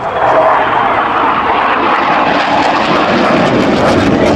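Military jet flying low past, its engines' noise swelling in at the start and staying loud.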